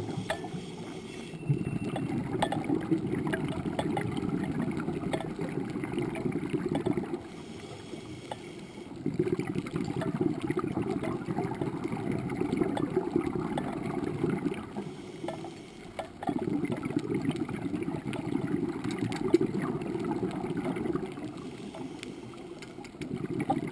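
Scuba regulator exhaust bubbles heard underwater: bubbling bursts of about five seconds each, coming roughly every seven seconds with short quieter pauses between them as the diver breathes in. Faint scattered clicks run underneath.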